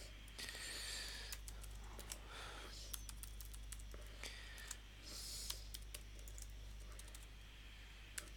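Typing on a computer keyboard: faint, irregular key clicks over a low steady hum, with two brief soft hisses, the first about half a second in and the second about five seconds in.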